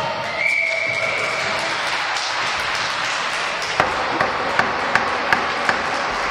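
A referee's whistle blows one steady blast of about a second, starting about half a second in. After it come six sharp taps, evenly spaced at about three a second, each with a short ring, over a steady background din in the hall.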